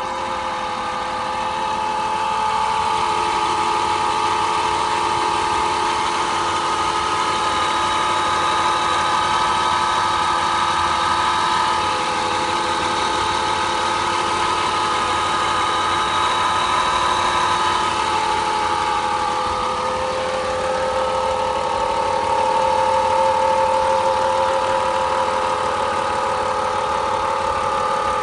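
Saab 9-5's 3.0-litre turbocharged V6 engine running steadily at idle, with an even hum whose pitch shifts slightly about twenty seconds in.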